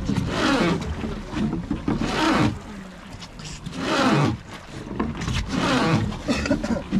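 Oars of a wooden river boat worked in steady strokes, a surge of sound with each stroke, four strokes about two seconds apart.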